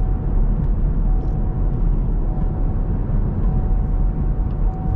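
Inside the cabin of a 2015 Chevrolet Camaro with a 3.6-litre V6, driving: steady engine and road rumble, with a faint thin whine that comes and goes.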